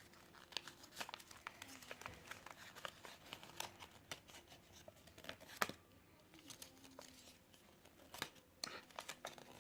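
Toy packaging being crinkled and torn open by hand, a faint run of scattered crackles with one sharper snap about five and a half seconds in.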